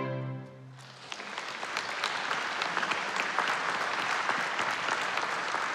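The last note of a classical string performance fades out within the first second, then an audience applauds steadily.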